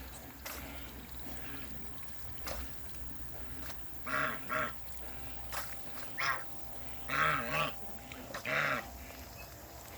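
Waterfowl giving short, loud honking calls, mostly in pairs, starting about four seconds in and repeating several times over a steady low hum.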